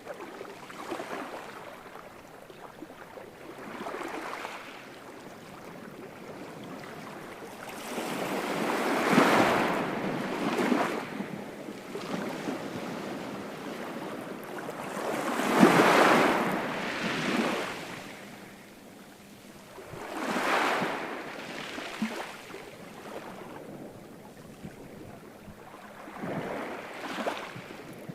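Ocean waves surging and washing in, rising and falling every few seconds; the two biggest swells come about a third of the way in and just past halfway.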